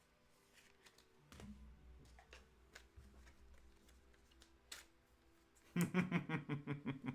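Faint background music with light clicks and rustles of trading cards being handled. Near the end, a loud, rapidly pulsing sound of about nine pulses a second, lasting just over a second.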